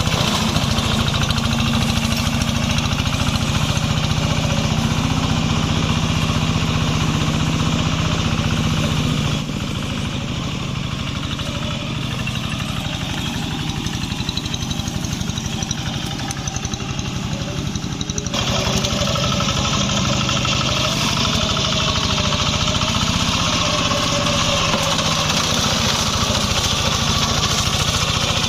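Small engine of a homemade swamp grass-cutting machine running steadily. The sound drops abruptly quieter about nine seconds in and comes back to full level about eighteen seconds in.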